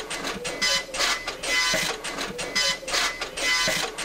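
A printer running, its print head buzzing in short repeated passes about twice a second.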